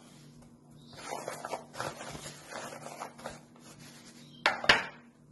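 Hands rubbing and pressing fish pieces into dry semolina in a plastic tray: an irregular gritty scraping and rustling. Two sharp knocks near the end.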